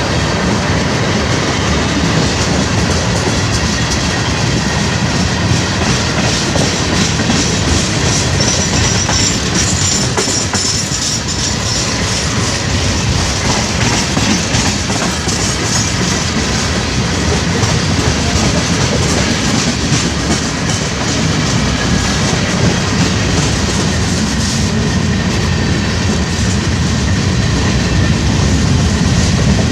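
Freight train cars rolling steadily past, their wheels clacking over the rail joints.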